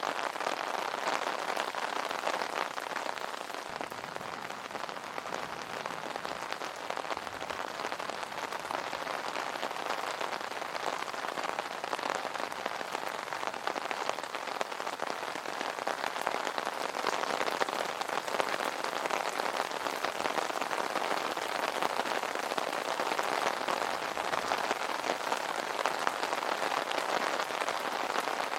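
Steady rain falling on an umbrella, a dense, even spray of drop hits with no let-up.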